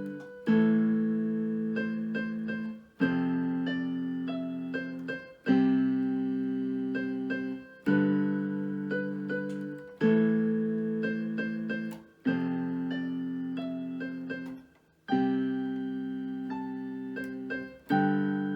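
Solo piano playing a slow piece: a low chord struck about every two and a half seconds, held and fading away, with a few quicker higher melody notes picked out over each.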